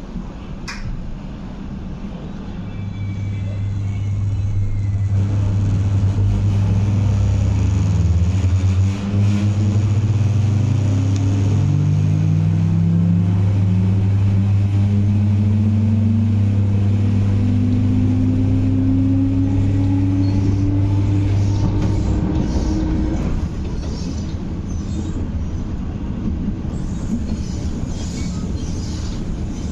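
MTR East Rail Line MLR electric train accelerating, heard from inside the carriage: its traction motors whine in steadily rising tones over a steady low hum and the rumble of wheels on track. A little over twenty seconds in, the whine stops and only the running rumble goes on.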